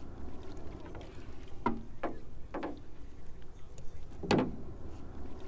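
Outrigger canoe knocking as it is handled at a wooden dock: four short, hollow-sounding knocks, the last and loudest about four seconds in, over a low steady rumble.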